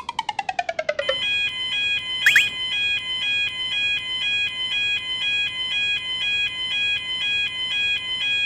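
Japanese railroad crossing warning bell ringing in a steady, evenly repeating alternating ding pattern (the 'kan-kan' crossing alarm), starting about a second in after a quick run of falling tones. A brief rising chirp sounds once about two seconds in.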